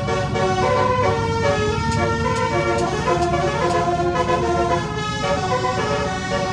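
Basuri telolet multi-tone air horn playing a tune of quick, stepping notes, often several sounding together, over a vehicle engine running low underneath.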